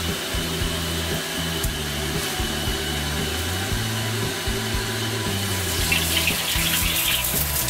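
Steady roar of a commercial wok burner firing under a carbon-steel wok. About six seconds in, liquid ladled into the hot wok hisses and sizzles briefly.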